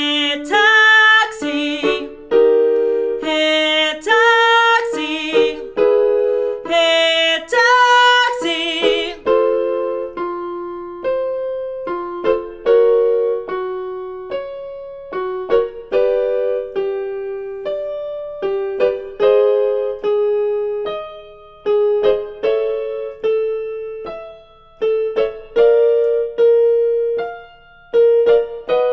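A woman sings a belted vocal warm-up pattern with vibrato over piano accompaniment. About nine seconds in the voice stops and the piano alone plays on, striking the exercise's notes one after another.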